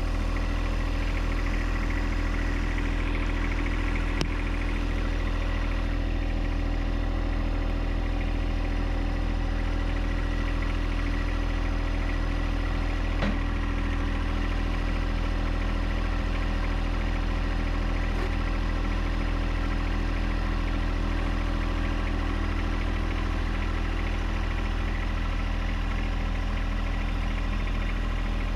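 John Deere 1025R compact tractor's three-cylinder diesel engine running at a steady, unchanging speed, with a faint click or two.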